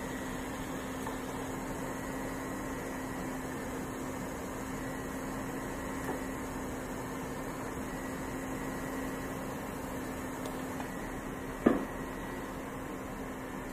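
Steady hiss and a constant low hum of an air traffic control radio recording between transmissions, with one brief blip about twelve seconds in.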